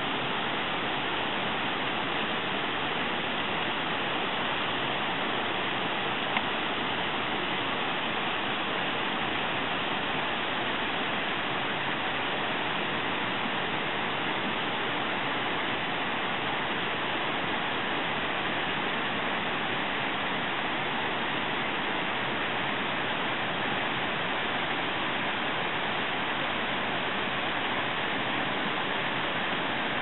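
Small waterfall running in thin streams over a rock ledge into a pool: a steady, unbroken rush of falling and splashing water. A single brief click about six seconds in.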